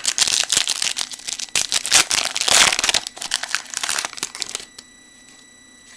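A 2013 Topps Prime Football card pack wrapper being torn open and handled: a dense run of irregular crackles that stops shortly before the end.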